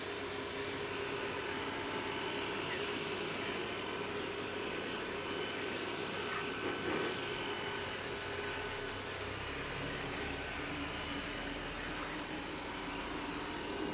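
A Roborock S5 Max robot vacuum running steadily as it cleans the floor: an even motor-and-suction noise with a few faint steady tones over it.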